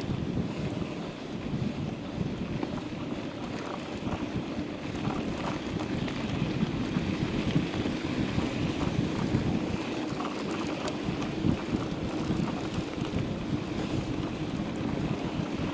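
Wind rushing over the microphone of a mountain bike's handlebar-mounted camera while riding at speed on a sandy dirt road, mixed with the tyres rolling over sand and small scattered rattles from the bike.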